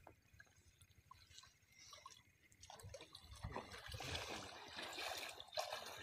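Shallow river water splashing and trickling around men wading and hauling in a fishing net; faint at first, busier and louder from about halfway through.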